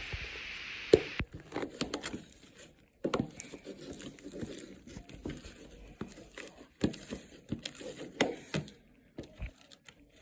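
Fluffy slime being worked in a bowl: irregular sticky squishing with scattered clicks, after a steady hiss in the first second.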